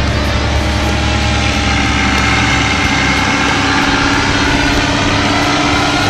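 Small propeller engine of a powered paraglider flying past, a steady drone whose pitch drifts slowly.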